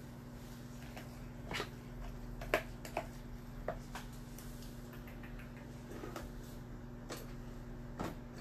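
A few scattered light clicks and taps of kitchen utensils and containers being handled on a counter, over a steady low hum.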